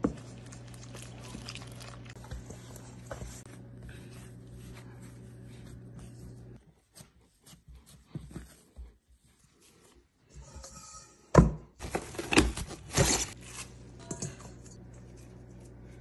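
Hands kneading roti dough on a counter, with a few loud knocks and thumps of dough and hands about 11 to 14 seconds in. A steady low hum lies under the start and the end.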